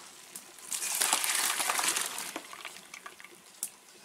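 Boiled raw jackfruit and potato pieces and their hot cooking water tipped into a woven bamboo basket to drain: a rush of pouring water starting about a second in and lasting about a second and a half, then fading to a few small clicks.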